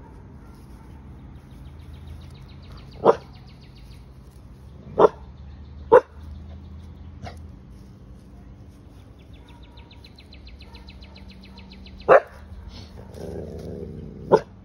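Pit bull barking in single short barks, about six in all at irregular spacing, with a pause of several seconds in the middle.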